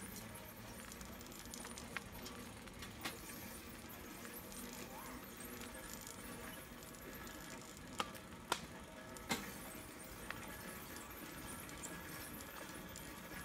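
Adult tricycle rolling along an asphalt lane: a faint steady rolling noise with a handful of sharp clicks and rattles, three of them close together a little past the middle.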